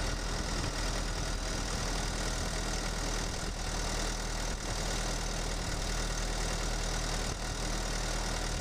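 Mercedes-Benz OM651 four-cylinder twin-turbo diesel running steadily under light load as the car rolls along, heard through a microphone in the engine compartment.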